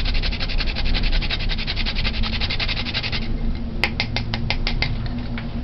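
Whole nutmeg grated on a small hand grater over the bowl: a fast, even run of scraping strokes that stops about three seconds in, then about seven slower, sharper strokes near the four-second mark.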